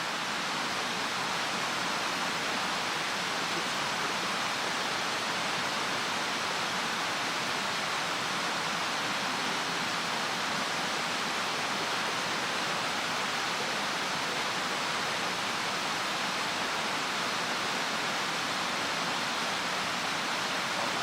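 Mountain stream water rushing steadily, an even hiss with no breaks.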